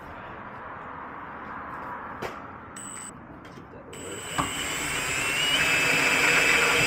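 Milwaukee FUEL cordless drill boring into the BMW E36's steel door frame. It starts quietly, then about four seconds in it speeds up to a loud, steady whine that rises briefly in pitch and stays at its loudest until it stops at the end.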